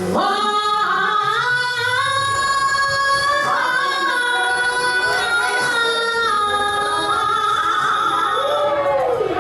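A solo voice singing long, held notes that step and slide between pitches, with a swoop down near the end, over musical accompaniment.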